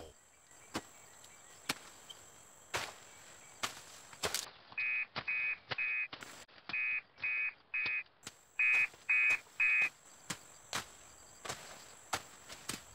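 A blade chops through undergrowth in short, irregular strikes about a second apart. In the middle, three sets of three short electronic beeps sound over the chopping, louder than it.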